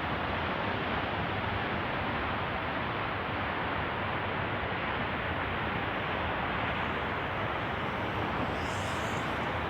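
Steady, even rushing noise of an F-15's twin jet engines at takeoff power, heard from a distance. No separate bangs stand out.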